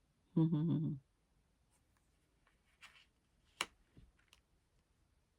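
A short hummed vocal sound about half a second in, then a few faint clicks and rustles of tarot cards being handled and laid down on a table.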